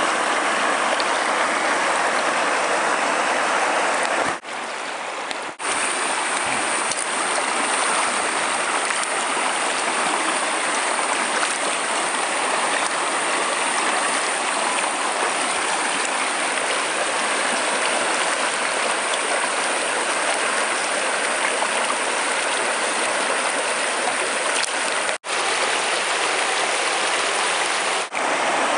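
Shallow river rapids rushing steadily. The sound drops away for about a second some four seconds in and cuts out twice briefly near the end.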